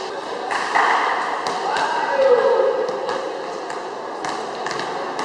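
Basketballs bouncing and thudding on the court, an uneven series of knocks, over a background of players' voices and chatter that peaks about two seconds in.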